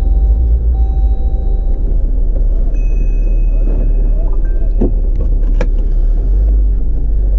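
Jeep driving a rough off-road trail, heard from inside the cabin: a steady low rumble with a few sharp rattles and knocks about five seconds in.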